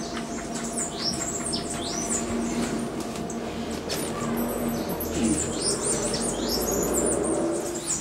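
Many small birds chirping and calling together: a dense, continuous chatter of short, high, falling chirps, several every second, with a steady low hum underneath.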